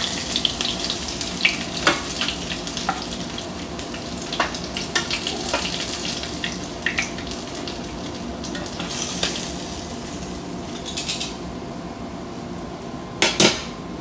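Breaded channel catfish pieces sizzling as they fry in hot oil in a skillet, with frequent light clicks of metal tongs against the pan as pieces are lifted out. A louder knock comes near the end.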